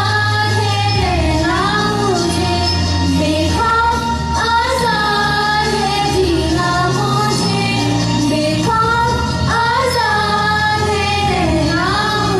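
Two girls singing a slow melody together into handheld microphones, with long held notes that slide between pitches, over an instrumental backing with a steady bass line.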